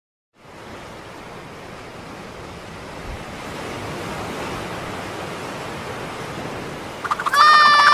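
Steady rushing water and surf ambience that fades in and builds slowly. About seven seconds in, a loud, high, squealing cry starts, held at one steady pitch.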